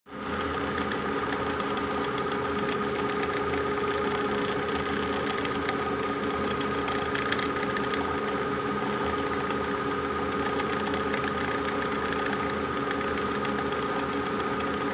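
Metal lathe running at steady speed, its drive giving a constant hum, while a home-made knurling tool presses grooves into a spinning green plastic workpiece with light, irregular scraping and ticking.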